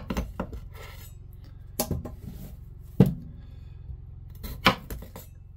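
A Dalstrong Damascus chef's knife cuts through small potatoes and knocks on a wooden cutting board about four times, a second or so apart, each with a few lighter taps after it. A low steady hum runs underneath.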